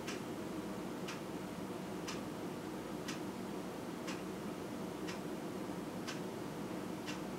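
Clock ticking steadily, about once a second, over a steady low background hum.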